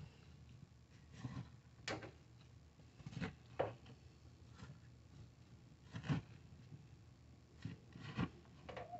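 Black plastic spoon stirring raw diced potatoes, kielbasa slices and butter chunks in a crock pot: irregular soft knocks and scrapes as the chunks tumble and the spoon hits the pot.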